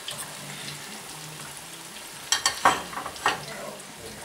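Food sizzling in a stainless steel frying pan while a fork stirs it, with a few sharp metal clinks of the utensil against the pan a little past halfway.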